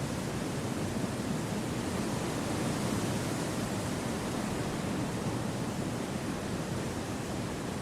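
Gentle wind through forest trees: a steady, even rushing noise with no distinct gusts, fuller in the low range than the high.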